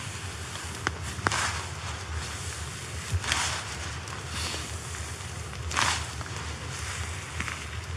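Wet Lanshan 2 tent fabric and its nylon stuff sack rustling in short bursts as the tent is pushed down into the sack, with a couple of small clicks about a second in. A low wind rumble on the microphone runs underneath.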